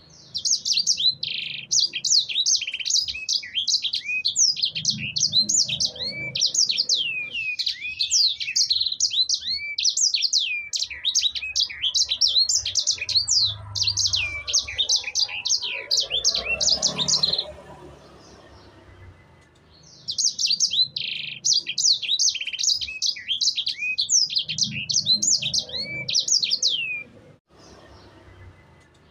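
Sanger songbird singing a long, fast song of rapid high sweeping notes, in two bouts with a short pause between them.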